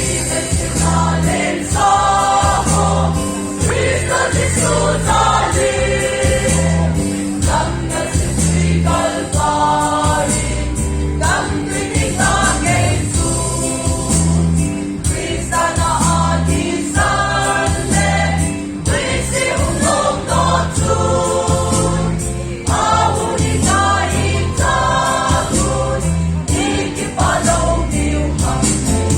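A group of voices singing a gospel song over a backing accompaniment with a steady, repeating bass beat.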